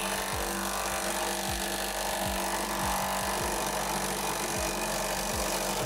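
Cordless impact driver running continuously under load with a rapid rattle, driving a bolt tight on the steel lifter-arm assembly. Quiet background music plays underneath.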